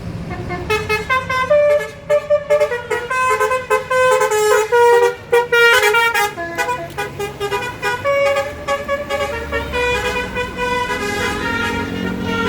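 Bus telolet horn of the basuri type playing a quick tune, pitched notes stepping up and down, over the low rumble of a bus engine. The tune starts about a second in.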